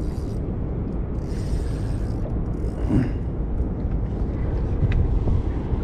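Wind buffeting the action camera's microphone on an open boat: a steady low rumble with no speech.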